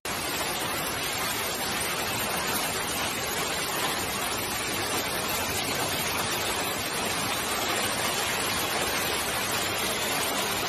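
Steady, even rushing of water from a hailstorm and flash flood, with no separate hail strikes standing out.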